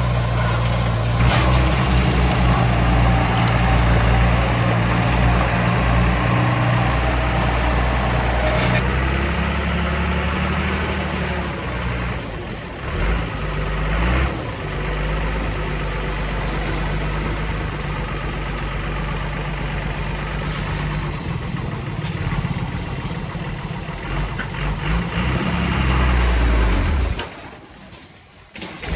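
Heavy diesel engine of earthmoving machinery running hard, its note shifting a few times. The sound drops away sharply for a moment near the end, then comes back.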